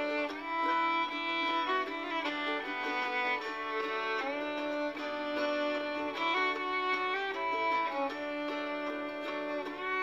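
Background instrumental music with a violin carrying the melody in long, held notes.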